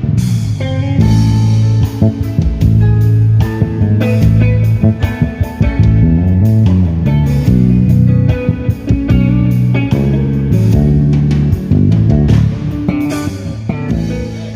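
A band playing without vocals: an electric bass guitar line moving under electric guitar chords and a drum kit. The music dies away near the end.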